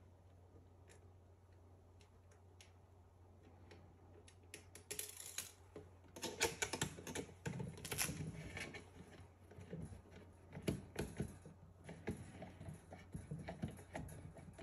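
Irregular small clicks and metallic taps of a hand screwdriver and nuts being worked on the bolts of a stainless steel oven door panel, starting about four seconds in after a quiet stretch.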